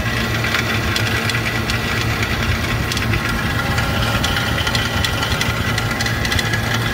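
Hermetic refrigeration compressor of a walk-in cooler condensing unit running with a steady hum and a constant irregular knocking rattle, like rocks bouncing around inside it. This is the sound of a compressor failing internally, bad enough to need replacing.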